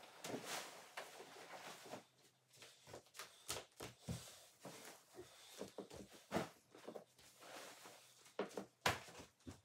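A duvet being shaken out and smoothed, its fabric rustling, followed by footsteps and soft knocks on a hardwood floor as the bed is finished. A sharper knock comes near the end.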